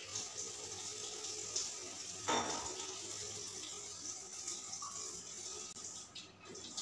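Tap water running steadily into a kitchen sink, with a short knock about two seconds in.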